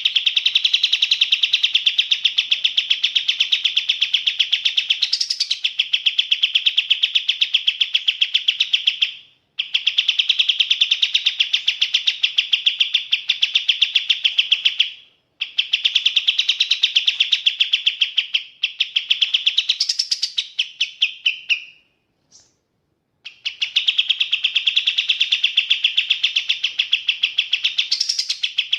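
Kapas tembak songbird singing long bouts of rapid, evenly repeated high chattering notes, several a second, broken by short pauses every few seconds.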